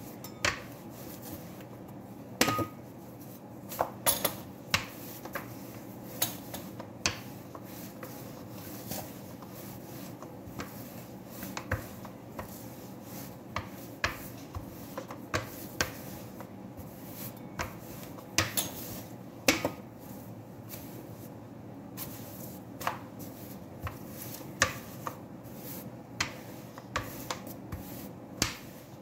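Metal rolling pin rolling out pizza dough on a plastic-covered table, with irregular sharp clicks and knocks, about one or two a second, over a steady low hum.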